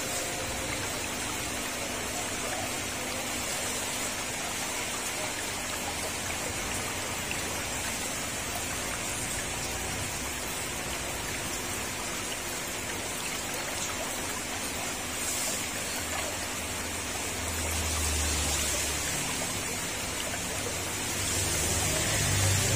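Steady watery hiss and spatter of water churned by a running ultrasonic mist maker in a paludarium. A low hum swells twice in the second half.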